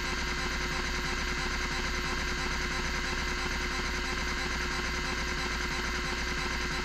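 Miniscribe 3425 MFM hard drive running: a loud, steady spindle motor hum and whine, with the stepper motor moving the heads in fast, continuous steps.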